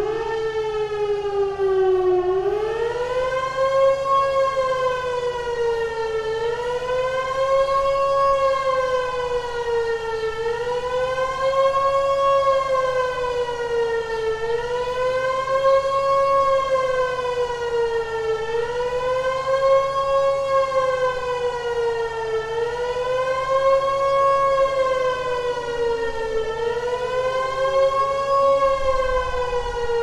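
Elektror S3B high-tone motor siren, an old factory air-raid siren, wailing, its pitch rising and falling about every four seconds. This is its test run after some 17 years standing idle.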